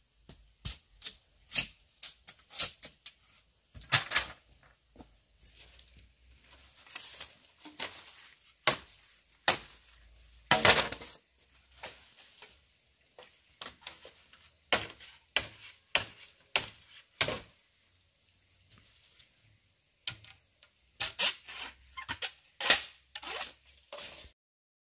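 Irregular series of sharp knocks and clicks, like hand work with tools or materials, with a longer scraping sound about 4 seconds in and again around 10 seconds. The sound stops abruptly near the end.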